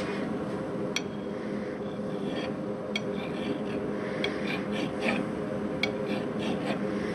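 Flat hand file scraping in short strokes against the steel spindle of a 1947 Wards Powr-Kraft wood lathe, which is held in a metal lathe, to clean it up. A few sharp metallic clicks stand out, and a steady hum runs underneath.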